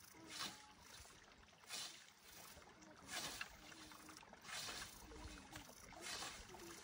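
A hand scythe swishing through tall grass in steady mowing strokes, five swishes about a second and a half apart.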